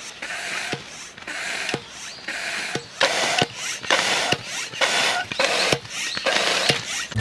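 Hand pump inflating an air tent's beams: a whoosh of rushing air with each stroke. The strokes come about once a second at first, then about twice a second from about three seconds in.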